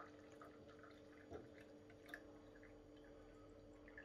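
Near silence: a low steady hum with a few faint scattered drips and ticks as linden tea is poured into a glass, the clearest about a second and a half and two seconds in.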